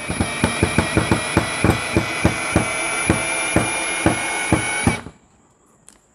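Dekton DK-ID2140MKT brushless cordless drill driving a long screw into a wooden beam on setting 1. The motor runs steadily with a whine and a regular knocking, about four knocks a second and slowing slightly, and stops about five seconds in.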